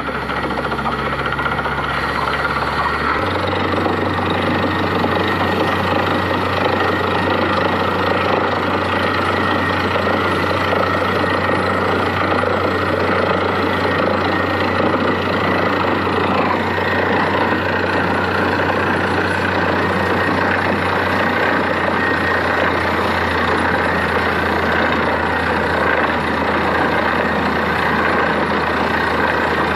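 Truck-mounted borewell drilling rig running steadily, its engine and air compressor blowing muddy water up out of the borehole in a spray. The engine note shifts about three seconds in.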